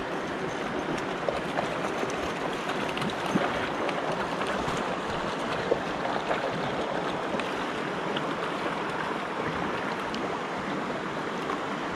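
River water rushing steadily, with a few faint short clicks over it.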